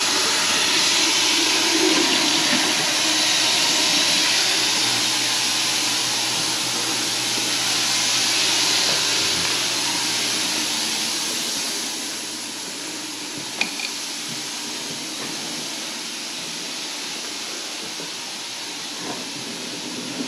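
Steady hiss of rushing water, easing a little about twelve seconds in, with a single sharp click shortly after.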